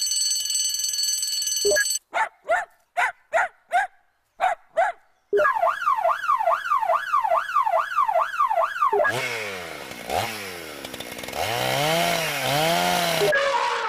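A quick run of different sound effects: a steady hiss with high tones, then a string of short chirps, then a warbling alarm-like tone that swings up and down about three times a second, then a rushing noise with sweeping tones that stops just before the end.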